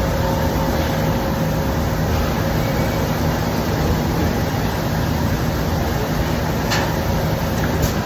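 A loud, steady mechanical drone with a low hum running through it, and a couple of faint clicks near the end.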